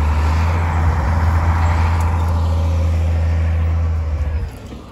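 Crawler bulldozer's diesel engine running steadily, a deep drone, while the machine clears a hillside. It drops away abruptly a little over four seconds in.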